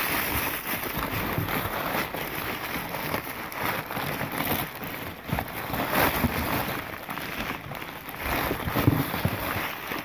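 Crumpled newspaper packing rustling and crinkling as a gloved hand digs through it in a cardboard box, close to the microphone, with many small crackles throughout.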